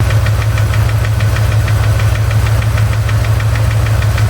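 Chevrolet ZZ4 350 small-block V8 idling with a steady, rapid knocking or ticking, about six or seven ticks a second. The owner wonders whether it is piston slap or a spun bearing, and it is still there after a valve lash adjustment.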